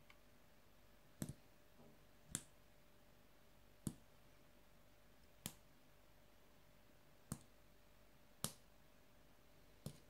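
Small tactile pushbutton switches on a breadboard pressed by finger one after another, giving about seven short sharp clicks spaced a second or so apart.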